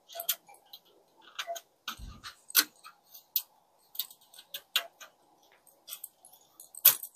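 Parts of a rotating jewelry organizer being handled and pushed together: a string of irregular light clicks and taps, with a short dull thump about two seconds in.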